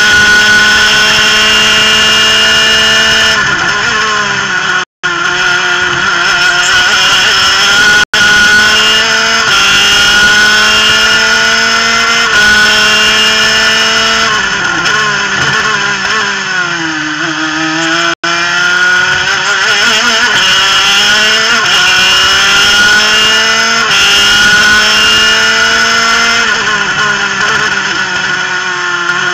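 Onboard sound of a superkart's twin-cylinder two-stroke engine at full throttle, held high in its revs around 13,000 rpm. The pitch steps and wavers, dips and climbs again midway, and falls off near the end as the kart slows for a corner. The sound cuts out for an instant three times.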